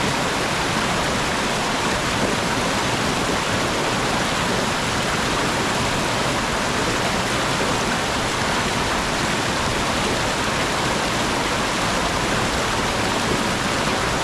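Mountain stream tumbling down over rocks: a steady, even rush of flowing water with no breaks.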